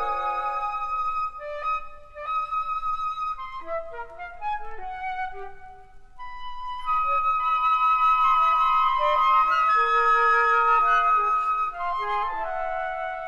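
Flute choir playing held, overlapping notes that thin out and fade near the middle, then swell into a louder, fuller chord about seven seconds in.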